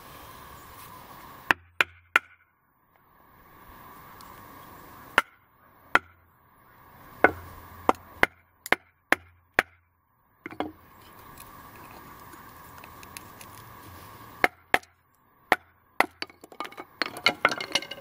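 Small stainless hatchet head of a Sheffield 12-in-1 hatchet multi-tool chopping into wood on a stump. The sharp blows come in irregular groups, with a quick flurry of them near the end.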